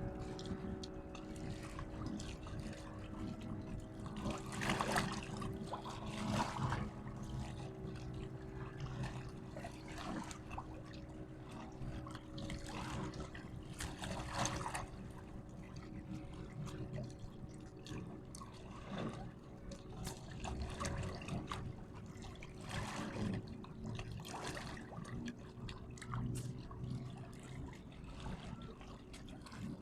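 Water trickling and splashing in irregular surges every few seconds, over a steady low hum.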